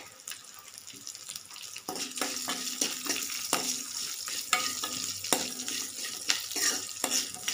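Curry leaves, garlic, shallots and whole spices frying in a little coconut oil in a metal pan, with a light sizzle and the clicks and scrapes of being stirred, louder from about two seconds in.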